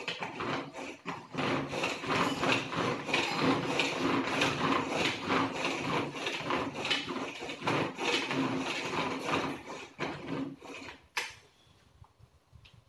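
Hand-operated vegetable chopper worked over and over, its blades whirring and rattling through tomatoes inside the plastic bowl. It stops with a click near the end.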